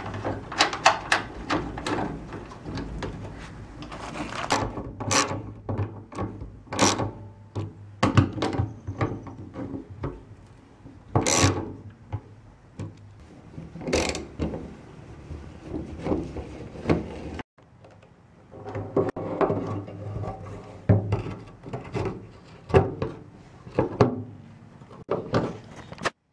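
Irregular clicks, clinks and knocks of a ratchet wrench and metal hardware as the nuts holding a fuel pump assembly's flange to a car gas tank are worked off and the parts handled.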